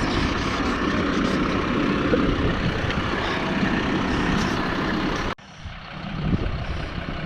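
Claas Arion 650 tractor running with heavy, steady engine and machinery noise. It cuts off abruptly about five seconds in to a quieter engine sound that builds again.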